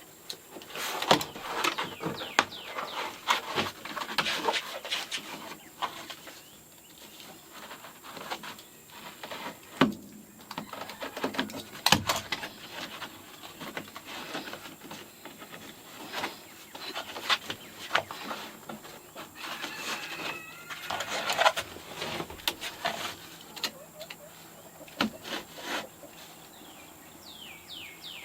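Irregular sharp clicks and knocks of hand work on the coop floor, scattered through the whole stretch. Chickens call now and then, most clearly about twenty seconds in.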